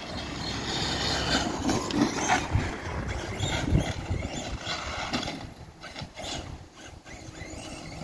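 Losi DBXL-E, a 1/5-scale brushless electric RC desert buggy, driving on the track. Its motor and drivetrain run with a level that rises and falls, louder in the first few seconds and dropping off about five seconds in as the buggy moves away.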